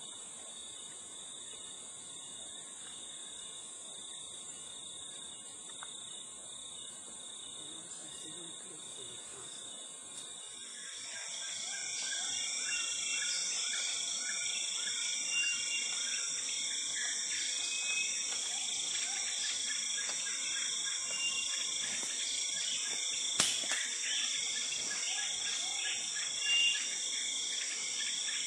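Rainforest insect chorus: a steady high-pitched buzzing and trilling that grows louder about eleven seconds in. Short high calls sound over it after that, and there is one sharp snap a little past the middle.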